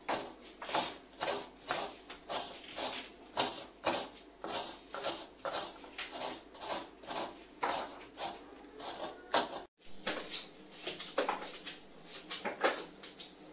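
Fresh coconut being scraped into shreds, a rasping stroke repeated about twice a second. After a short break near the end, a knife scrapes along raw cassava as it is peeled.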